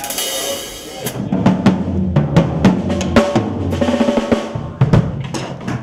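Drum kit played with sticks: a cymbal wash for about the first second, then a busy pattern of sharp drum hits over low thuds.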